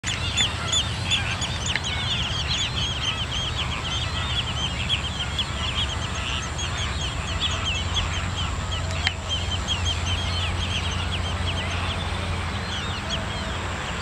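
A large flock of wading birds calling without pause: many short, high calls overlapping, over a steady low hum.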